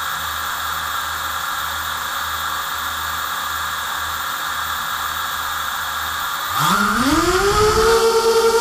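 A small racing quadcopter's four brushless motors (Lumenier 2206, 2000kV) with 5040 props spin steadily with a hiss while armed on the ground, heard from its onboard camera. About six and a half seconds in, the throttle comes up for takeoff: the motors get louder and their pitch rises over about a second, then holds.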